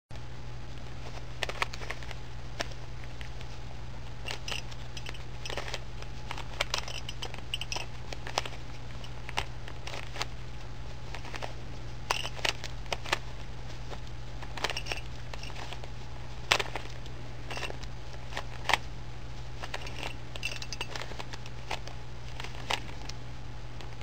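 A 3x3x3 Rubik's Cube being turned by hand, its plastic layers clicking and clacking in irregular runs of quick turns with short pauses between. A steady low hum runs underneath.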